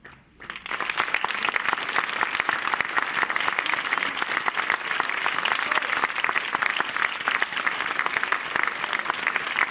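Audience applause, many hands clapping, breaking out suddenly about half a second in and holding steady.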